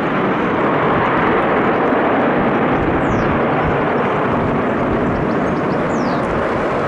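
Singapore Airlines Airbus A380's four Rolls-Royce Trent 900 jet engines running at high power as the aircraft rolls down the runway: a loud, steady roar.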